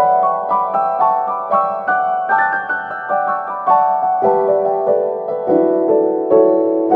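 Background piano music: a gentle melody of evenly paced notes over held lower notes.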